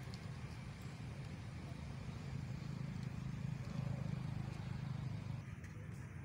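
Low, steady rumble of a distant motor vehicle engine, swelling about halfway through and easing off again.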